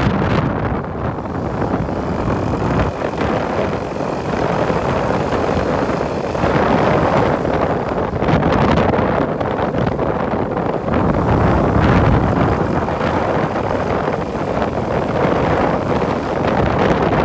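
Motorcycle running while being ridden, its engine noise mixed with wind buffeting the microphone.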